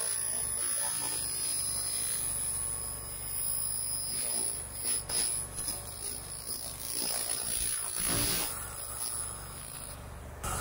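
Pulsed laser cleaner ablating the surface of a steel gear tooth: a steady electric buzz with a thin high whine over a low hum. The high sound drops out briefly near the end.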